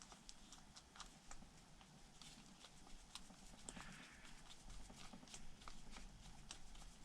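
Faint, irregular light clicks and taps from small hand tools and paintball-marker parts being worked by hand, about one or two a second.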